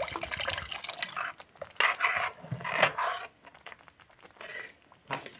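Water poured from a jug into a metal kadai of tomato masala, then a metal ladle stirring and sloshing through the thin gravy in two louder spells, about 2 and 3 seconds in.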